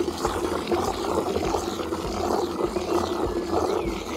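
Garden hose spray gun jetting water into a bucket of diluted car shampoo, a continuous gushing that agitates the mix into foam.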